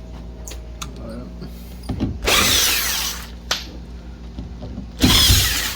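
Screw gun driving screws into a drywall ceiling, two runs of about a second each, the second near the end.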